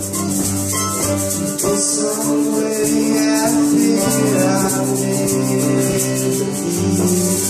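A small band playing live: strummed acoustic guitar and other guitars over sustained low bass notes, with a rhythmic high rattle like a shaker keeping time.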